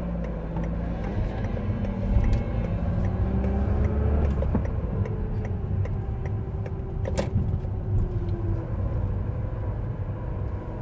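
A car's engine and road noise heard from inside the cabin while driving, as a steady low rumble whose engine tone shifts slightly in pitch. A single sharp click comes about seven seconds in.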